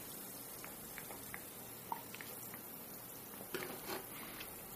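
Faint small clicks and sipping as a glass of homemade fizzy aspirin, baking-soda and citric-acid drink is drunk from, then a light knock of the glass being set down on the table about three and a half seconds in.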